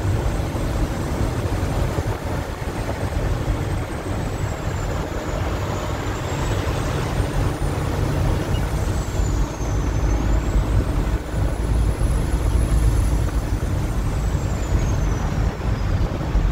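Steady engine and road rumble heard from inside the cab of a Peterbilt truck driving along, with a faint high whistle that slides up and down in pitch.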